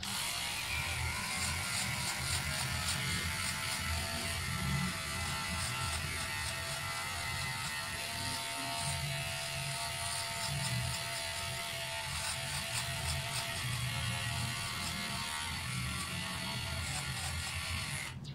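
Cordless electric hair clipper running with a steady buzz as it trims hair at the side of the head. It cuts off near the end.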